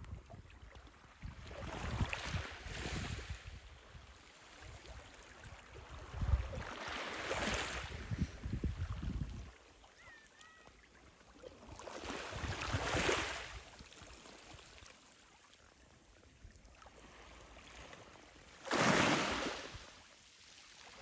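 Black Sea surf washing in against the shore in four surges, the last, near the end, the loudest and sharpest, with low wind rumble on the microphone under the earlier ones.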